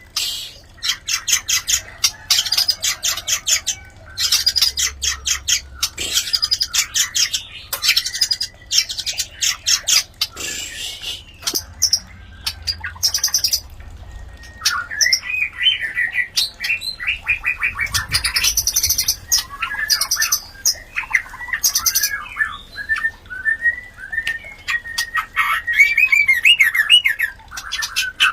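White-rumped shamas mating: for the first half, long runs of rapid harsh chattering rattles; from about halfway, varied whistled song phrases that sweep up and down, with short harsh rattles mixed in.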